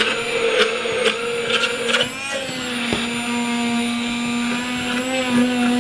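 Tokebi electric hand blender with its whisk attachment running steadily, whipping egg whites in its beaker. About two seconds in, its pitch shifts and then settles into a steadier hum.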